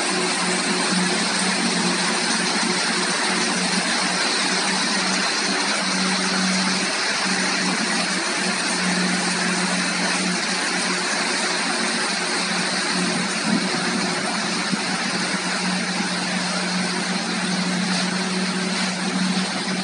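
Aquatic weed harvester under way on its paddle wheels: a steady engine hum under a constant rush of churning water.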